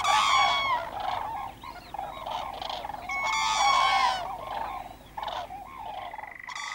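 Common cranes bugling: several birds giving loud, trumpeting calls that overlap, with two bursts of louder calling, one at the start and one about three seconds in. Near the end a steady high churring trill cuts in.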